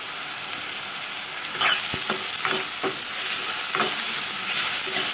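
Chopped green chillies and sliced onions sizzling in hot oil in a metal kadai, with a metal spoon scraping the pan as they are stirred. The sizzle grows louder about a second and a half in, when the stirring starts, and several scrapes follow.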